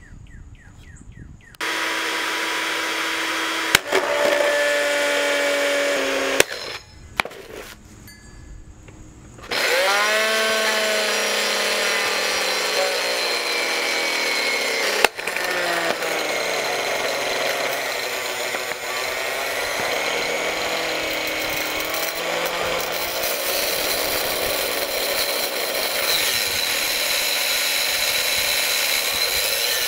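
GE blender base with no jar fitted, its motor running unloaded with a loud, steady whine. After a few seconds it cuts out with a couple of clicks, then starts again about nine seconds in, rising in pitch as it spins up, and runs on steadily with a slightly wavering pitch.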